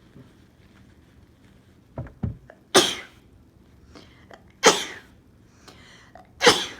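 A woman sneezing three times, about two seconds apart, each sneeze loud and sudden. Two quick catching breaths come just before the first. The sneezes are set off by a pinch of powdered snuff sniffed up one nostril.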